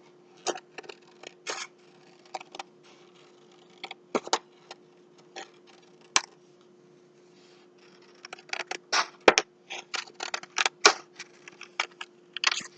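Scissors snipping through paper in short, irregular snips that come quicker and closer together in the last few seconds, over a faint steady hum.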